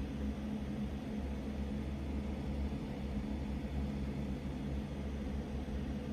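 Steady low hum with a faint hiss of room background noise, even throughout with no sudden sounds.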